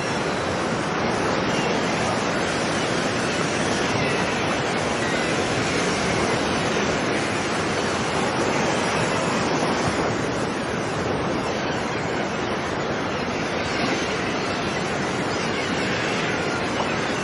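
Ocean surf washing onto a beach: a steady, unbroken wash of breaking waves with no distinct single breakers standing out.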